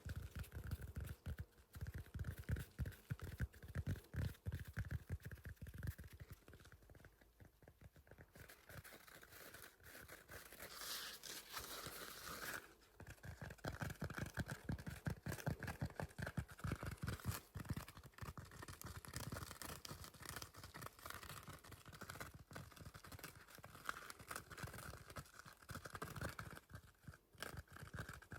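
Close-up scratching on the rough side of a blue sponge, a fast run of short scratchy strokes that eases off briefly about seven seconds in.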